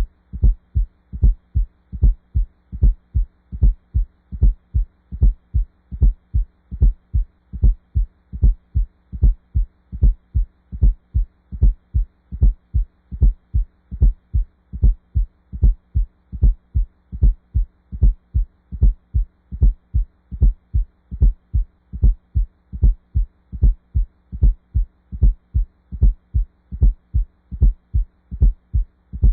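Heart sounds with an S4 gallop: a low extra sound, the fourth heart sound, falls just before S1 in each cycle, beating in a steady, even rhythm. An S4 comes from the atria contracting into a stiff, noncompliant ventricle.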